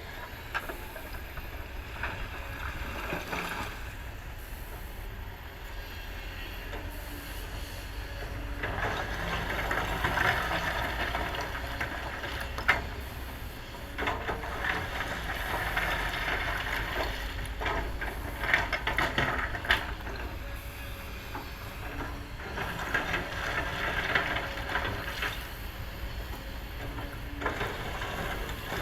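Kobelco excavator working: a steady diesel engine rumble with repeated swells of louder, hissing noise as it works, and a few sharp knocks.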